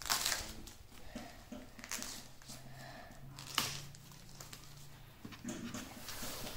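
Clear plastic shrink-wrap film being peeled off a tablet box, crinkling and crackling in irregular bursts, with one sharp crack about three and a half seconds in.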